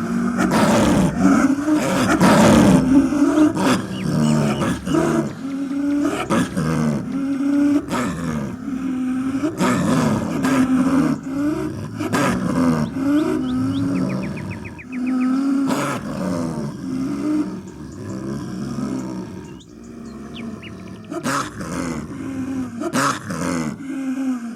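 Snow leopard calling: a long series of drawn-out, wavering low calls that bend up and down in pitch, with sharp clicks between some of them.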